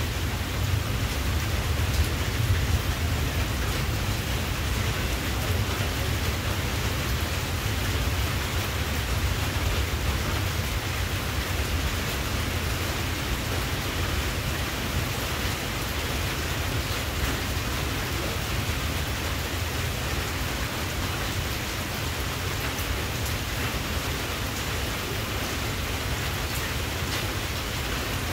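Steady, even rushing noise with a low rumble underneath, unchanging throughout.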